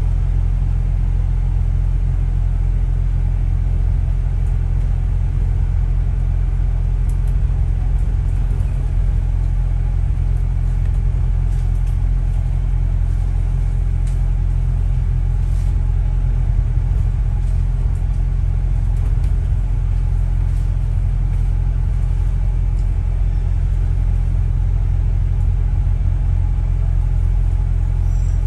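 Steady low rumble of a double-decker bus running, heard from its upper deck, with a few faint clicks and rattles over it.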